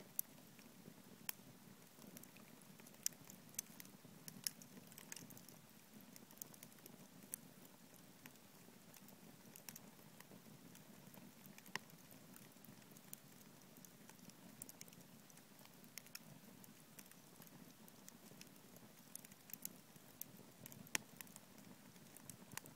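Wood campfire crackling: irregular sharp pops and snaps from the burning logs over a faint, steady low rush.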